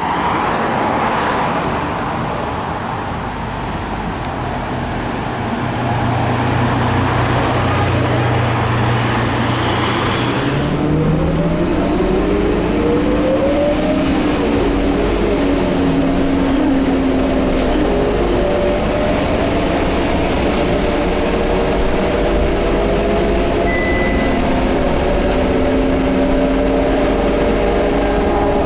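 Scania K230UB bus's five-cylinder diesel engine running with a steady low hum. About ten seconds in, the bus gets under way and rising, shifting whines join it: a thin high whistle and lower gear-like whines. The uploader suspects the turbo and the hub reduction axle.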